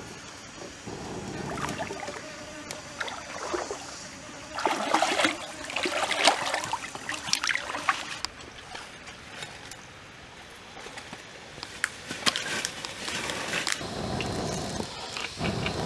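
Stream water trickling, with scattered clicks and knocks of things being handled. Near the end, two breathy puffs as a person blows on a smoking wood fire.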